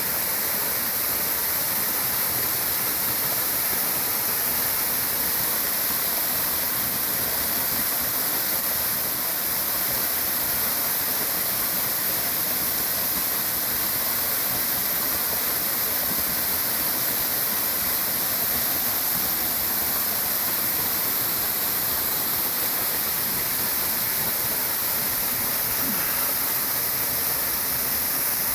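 Waterfall about eight metres high, its falling water making a steady, unbroken rush.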